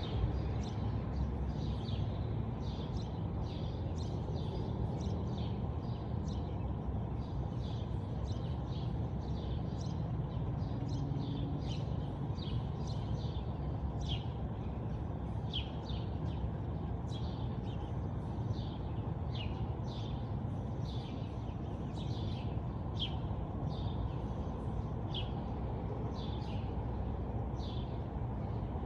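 Small birds chirping over and over in short, high, falling chirps, roughly one a second, over a steady low rumble.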